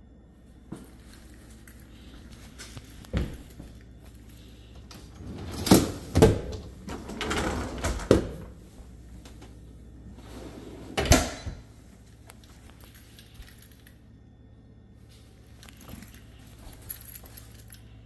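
GE dishwasher's wire racks being pushed back in, rattling and clattering on their rollers, then the dishwasher door swung up and shut with a loud knock about eleven seconds in.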